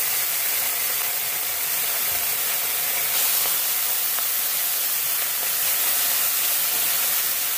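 Chopped onion sizzling in hot melted butter in a frying pan, a steady hiss.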